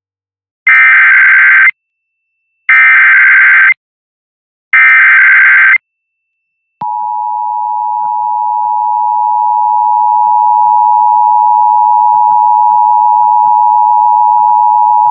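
Emergency Alert System signal: three one-second bursts of SAME digital header data, each a harsh warbling buzz, then about a second of silence and the long steady two-tone attention signal. It marks the start of an alert, here a severe thunderstorm warning.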